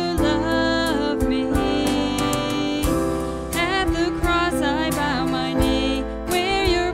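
A live worship band playing a contemporary worship song: a woman singing lead over acoustic guitar, electric bass, keyboard and drums, with steady drum hits throughout.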